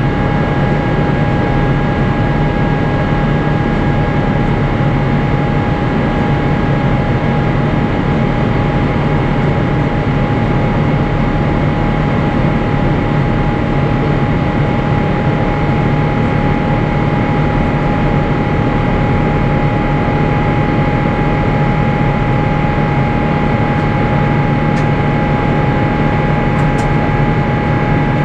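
Steady cabin noise inside an Airbus A350-900 in flight: the rush of air and the running of its Rolls-Royce Trent XWB engines, with a few steady tones held over the noise. A couple of faint ticks near the end.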